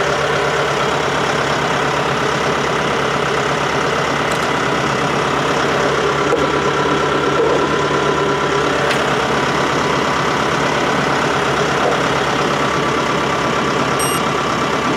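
Shibaura diesel engine of a Lovol TB554 tractor idling steadily, heard from inside the cab. A brief high beep sounds near the end.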